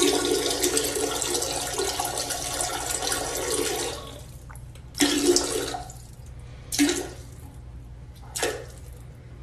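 A toilet flushing: a loud rush of water for about four seconds that fades away, followed by three shorter bursts of rushing noise.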